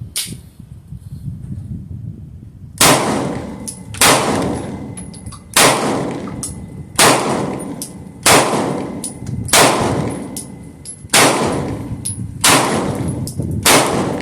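Rifle firing nine shots in steady succession, about one every second and a half, each crack trailing off in an echo; the first shot comes nearly three seconds in.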